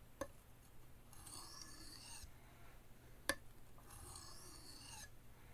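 Knife blade drawn slowly across a soft Arkansas oilstone, honing the edge finer: two faint scraping strokes about a second long each, with a light click between them, the loudest about three seconds in.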